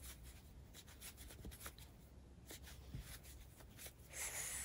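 Faint scratching and rustling of a crochet hook working chunky yarn through puff stitches, with a louder brief rustle of the yarn and fabric near the end.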